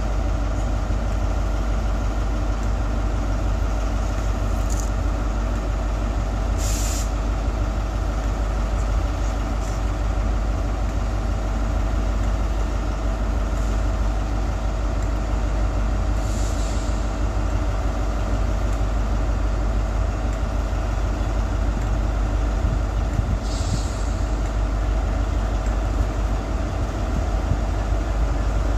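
A Class 43 HST diesel power car idling with a steady deep engine drone. Short sharp air hisses cut in four or five times.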